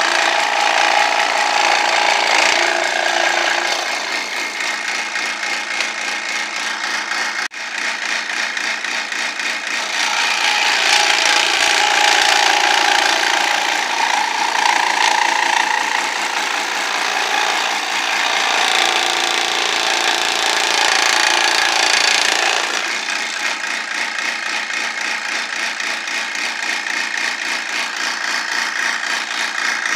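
Benchtop scroll saw running, its fine reciprocating blade cutting through thin plywood as the piece is fed and turned by hand. The cutting noise grows louder for stretches and eases off in between, with a brief dip about seven seconds in.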